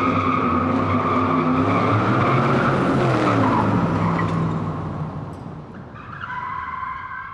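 Car tyres squealing continuously, a held high squeal over the engine running underneath. The squeal eases off about five seconds in, then a quieter squeal starts again near the end.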